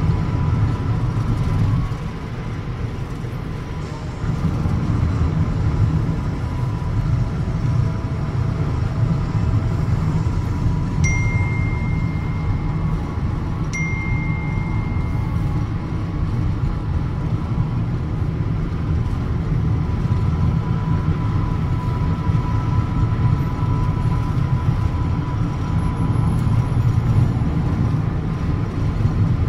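Steady road and engine rumble inside a moving car's cabin. Two short high tones sound a few seconds apart near the middle, the second one longer.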